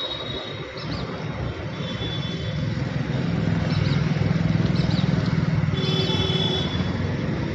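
Low engine rumble of passing motor traffic that swells about three seconds in and holds, with faint high-pitched tones over it.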